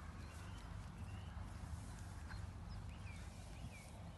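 A horse's hoofbeats on grass turf, under a steady low rumble, with a few faint high chirps near the end.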